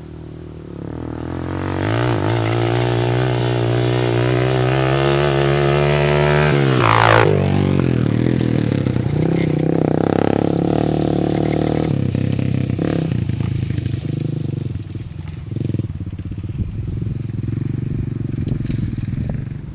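ATV engine running under throttle, its pitch holding steady and then dropping sharply about seven seconds in as the throttle comes off. After that it revs up and down unevenly, a little quieter over the last several seconds.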